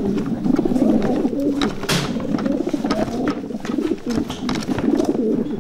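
Many racing pigeons cooing together in a loft, a continuous low murmur of overlapping coos. Scattered short clicks and a brief rustle about two seconds in.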